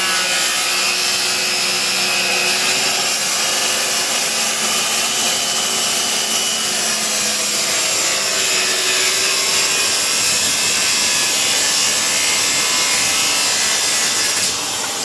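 Power saw cutting through a piece of lumber, running steadily with a shifting motor whine and stopping near the end.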